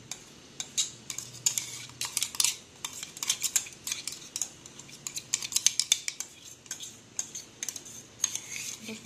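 A metal spoon scraping and clinking against the inside of a stainless-steel mixer-grinder jar and a small bowl as thick ground paste is scooped out: many quick, irregular clicks and scrapes.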